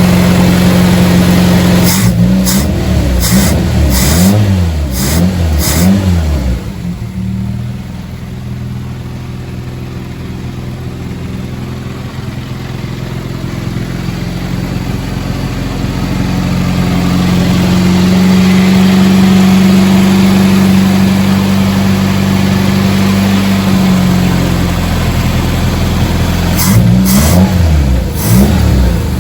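Freshly rebuilt Nissan Micra engine running on its first start, still untuned. It is blipped up and down several times, drops to a low idle, is held at a steady higher speed, and is then revved in short blips again near the end.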